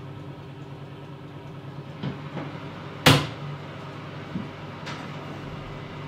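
Light knocks and clatter of objects being handled on a tabletop, with one sharp, loud knock about three seconds in, over a steady low hum.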